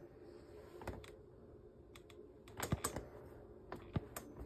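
Faint, scattered clicks and taps: one about a second in, a quick run of several a little past halfway, and a few more near the end.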